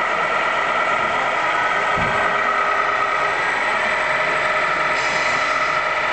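Steady whine and hum of small electric motors driving radio-controlled model construction machines, with a short low thump about two seconds in.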